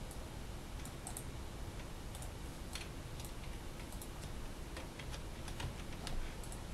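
Computer keyboard keys and mouse buttons clicking, a few scattered clicks at a time, while a file name is typed in.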